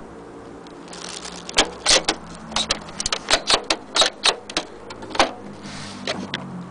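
Irregular sharp clicks and taps of hands handling the plastic body and parts of an overlock sewing machine, a dozen or so in a few seconds, then a short rustle near the end. The machine's motor is not running.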